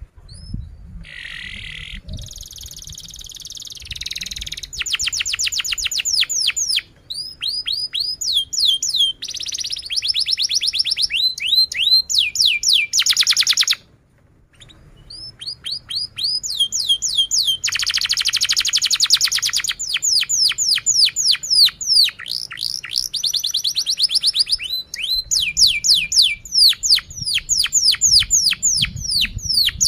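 Domestic canary singing a long, loud song of rapid trills, quick downward-sweeping chirps repeated several times a second in changing phrases, with a brief pause about halfway through.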